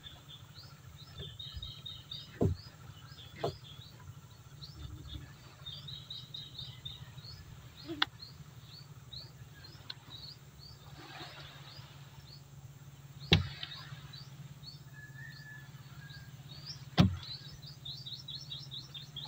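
Small birds chirping in quick, repeated bursts over a steady low hum. A few sharp knocks, the loudest two near the middle and toward the end, come from the fishing net and its weights being handled against the boat's hull, along with a brief rustle of netting.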